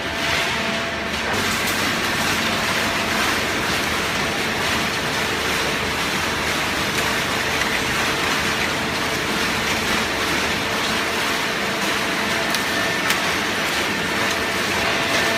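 Hydraulic baler running: a steady, dense machine noise from its hydraulic pump with a few held humming tones, and a single sharp click near the end.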